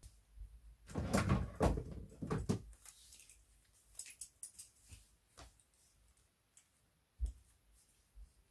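Handling noises of a belt being changed on a playsuit: a scuffle of fabric and clothing about a second in, the loudest part, then several light clicks from a metal belt buckle, and one soft thump near the end.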